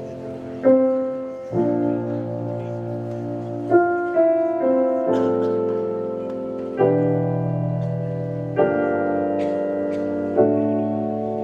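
Slow piano introduction to a song: sustained chords, with a new chord struck every one to two seconds.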